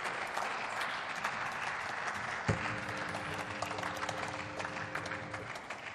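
Parliamentary applause from part of the chamber, a steady patter of many hands clapping. About halfway in a steady hum of a few low tones joins for about three seconds, then stops.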